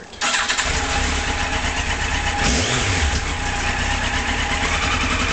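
Yamaha FJ1200's air-cooled inline-four engine, started on the electric starter for the first time after sitting four years. It catches almost at once and settles into a steady idle, with one brief rise in revs about two and a half seconds in, carrying a slight whine.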